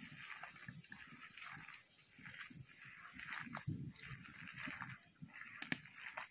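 Hand kneading a thick, wet soybean and gram-flour batter in a bowl: soft squelching and squishing in an uneven rhythm, with one sharp click near the end.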